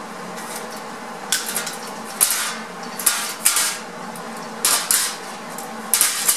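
Metal parts being handled: about seven sharp clinks and clanks, spread irregularly, over a steady background hum.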